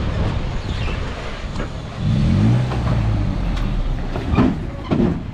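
2005 Toyota Tacoma's engine rising briefly in revs about two seconds in as the truck crawls forward over rocks, over a steady low rumble. A couple of sharp knocks near the end.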